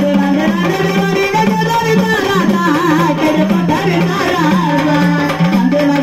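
Music: an instrumental passage of a Marathi gondhal devotional song, an ornamented melody line bending up and down over a steady drum accompaniment.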